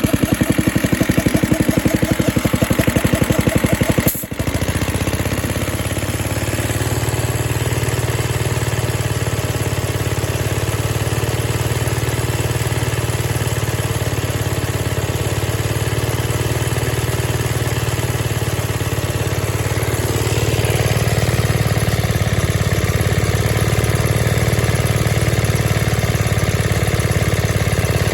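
Small cast-iron Briggs and Stratton single-cylinder engine driving an air compressor pump, running through a low-tone muffler. It beats with distinct pulses at first, then about four seconds in it changes abruptly to a smoother, steadier run, which gets a little louder from about twenty seconds in.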